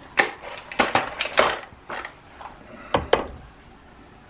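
Break-barrel air rifle (Gamo Swarm Fusion 10X Gen 2) being handled and cocked between shots: a quick run of sharp metallic clicks and clacks, with a last pair about three seconds in.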